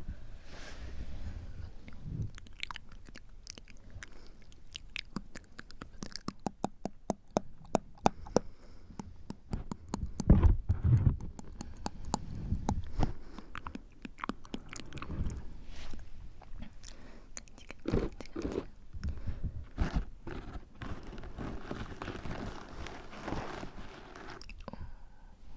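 Close-miked wet mouth sounds: tongue and lip clicks, coming thick and fast through the middle, with a few low thumps about ten seconds in and soft breathy puffs and blowing near the end.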